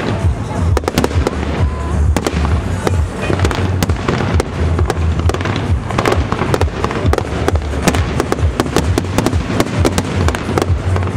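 Aerial fireworks display: a dense, rapid string of shell bursts and crackles, several bangs a second with no let-up.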